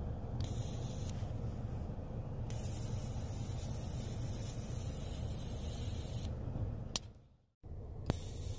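Dual-arc plasma lighter's electric arc hissing and buzzing steadily. It cuts off with a click about seven seconds in and is switched on again with another click a moment later.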